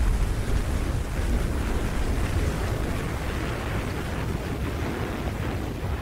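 Steady low rumbling wind ambience, a hiss of wind-like noise over a deep rumble, with no distinct events.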